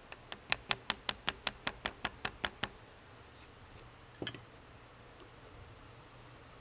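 A quick run of sharp, evenly spaced clicks, about six a second, that stops after about two and a half seconds, followed a little later by a single knock.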